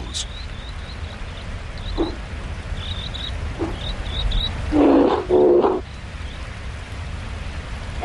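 Steady rush of creek water with small high bird chirps. About five seconds in, two short, louder animal calls come close together.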